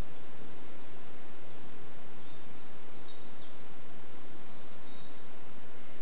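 Steady outdoor rushing noise, with faint, brief high bird chirps scattered through the middle.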